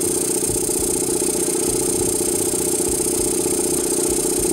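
RolAir 5715K17 electric belt-driven air compressor running steadily just after a cold start. The pump pulses evenly under a steady high hiss, and it runs with its cold-start valve and tank opened so it starts without back pressure.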